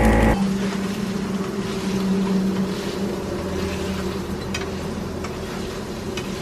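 Paneer frying in a pan, a steady hiss with a steady low hum underneath and a few light clicks of a spoon against the pan.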